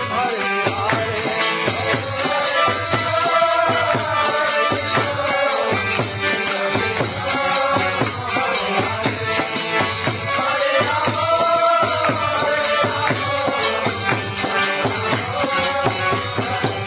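Devotional music: voices singing over continuous jingling hand percussion.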